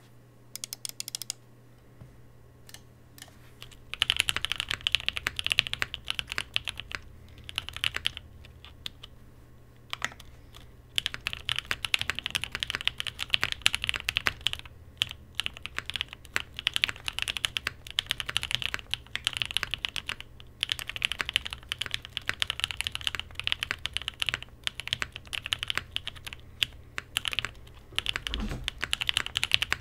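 Typing on a mechanical keyboard built with stock Gateron Cream Soda switches, GMK Devoted keycaps, TX stabilisers and a top-mounted POM plate with paper-towel and force-break mods. A few separate key presses at first, then fast, continuous runs of keystrokes from about four seconds in, with a couple of short pauses.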